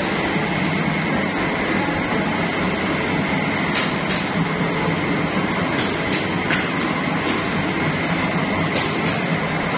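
Rotating coating-pan machines of a rewri confectionery plant running with a steady rumbling hum and a thin high whine held under it. A handful of sharp metallic clicks and clinks come through from about four seconds in.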